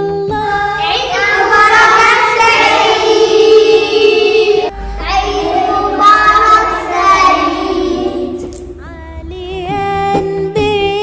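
A group of young children singing together over background music, in two long phrases. From about nine seconds in only the instrumental music with a wavering melody is left.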